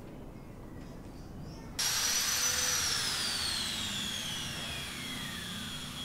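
Low background noise, then about two seconds in a power tool's high motor whine starts abruptly at full speed and winds down, its pitch falling steadily over the next few seconds.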